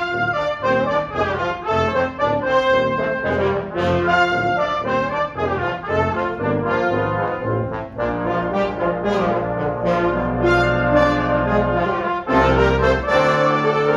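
Brass septet of trumpets, French horn, trombones and tuba playing a lively piece with many quick, short notes; from about halfway, the low brass hold long notes beneath the moving upper parts.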